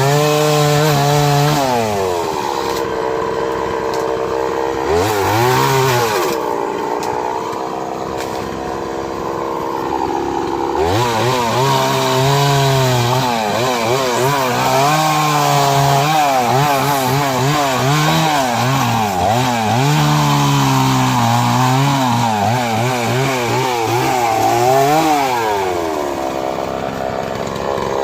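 Two-stroke chainsaw running hard through a large tree trunk. The engine pitch wavers and swoops up and down as the chain bites and bogs under load, with a couple of steadier, lower-pitched stretches between cuts.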